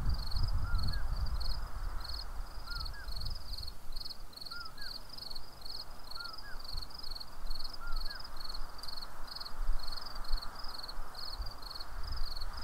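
Wind buffeting the microphone in gusts, over a steady, rapid, high-pitched chirping like an insect and a short rising call repeated every second or two.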